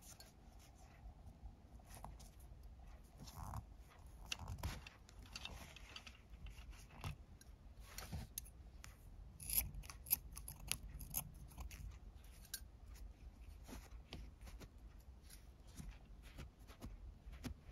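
Faint scissor snips and the rub of nylon paracord, with scattered small clicks, as the white inner core strands are pulled out of a cord end and cut.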